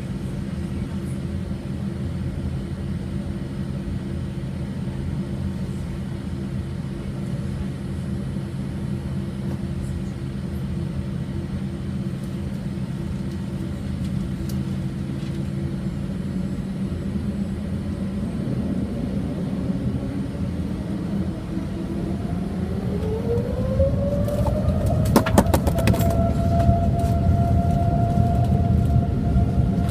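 Boeing 787-8 jet engines running with a steady low rumble. About two-thirds of the way through, a whine rises in pitch over several seconds and then holds high as the engines spool up, and the sound grows louder. A few sharp clicks come as the whine levels off.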